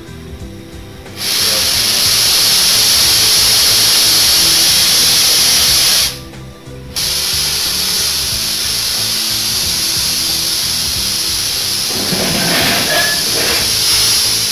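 Compressed-air HHO welding torch hissing loudly as pressurised air and oxyhydrogen gas rush out of the nozzle; the hiss starts abruptly about a second in, cuts out briefly around six seconds, then comes back. Hose and torch handling rubs in near the end.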